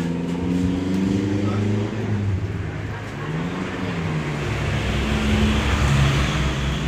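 A motor vehicle engine running steadily, its pitch drifting slightly up and down.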